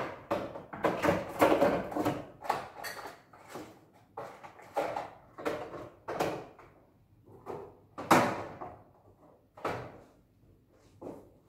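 Things being handled inside an open refrigerator: jars, bottles and containers knocking and scraping against its shelves and door in irregular clatters, the loudest about eight seconds in.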